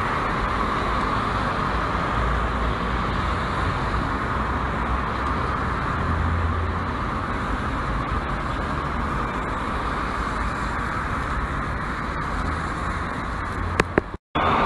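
Street traffic: cars driving past on a town road, heard as a steady road noise through a low-quality phone microphone. Near the end a click and a brief dropout where the recording cuts.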